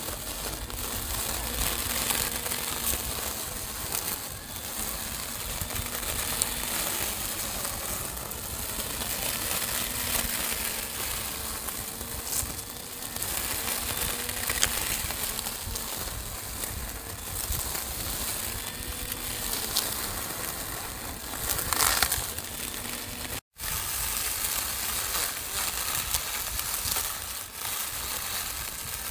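Small lawn mower running and cutting, with steady crunching and crackling of grass and twigs over a faint wavering motor hum. There is a brief dropout about 23 seconds in.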